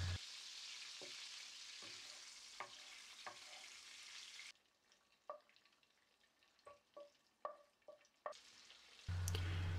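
Prawn heads frying in oil in a non-stick frying pan, stirred with a wooden spoon: a faint sizzle with light knocks of the spoon against the pan. The sizzle stops abruptly about halfway through, leaving scattered light taps.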